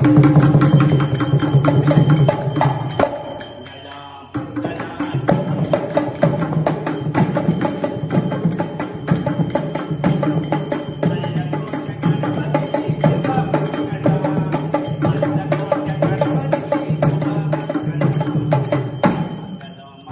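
Fast hand drumming on two-headed barrel drums of the dholak type, in a steady devotional rhythm with a regular high ticking over it. The playing sags briefly about four seconds in and again just before the end.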